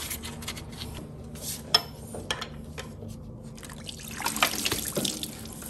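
Engine coolant trickling and splattering out of a Honda 3.5L V6 block as its water pump comes off, with scattered clicks and one sharp click a little under two seconds in. The spill gets heavier about four seconds in.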